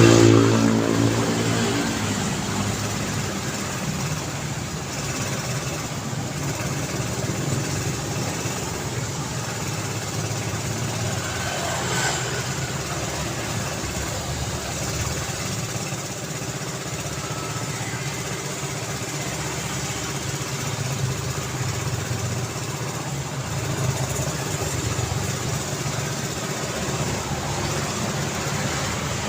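City road traffic: a steady rumble of engines and tyres, with one vehicle's engine loud as it passes close at the start and fading over the first couple of seconds.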